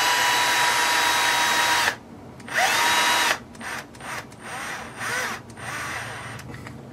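Cordless drill-driver spinning a hex bit to drive a screw into a plastic roll-cage part: one run with a steady whine that stops about two seconds in, a shorter run a second later, then a few short bursts.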